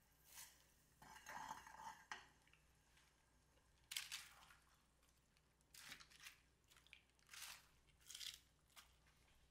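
Fresh bomdong (spring cabbage) leaves rustling and crunching as handfuls are dropped and pressed into a pan of boiling salted water to blanch. The sound comes as a series of short, crisp bursts.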